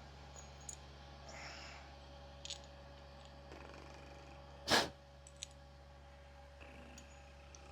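Small metal parts and tools being handled: faint clicks and light clatter, with one brief louder clack about two thirds of the way through, over a steady low hum.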